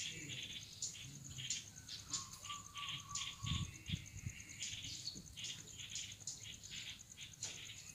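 Faint outdoor background of a steady, pulsing high-pitched insect trill with scattered short chirps and clicks from small birds, and a thin steady tone a little after two seconds in.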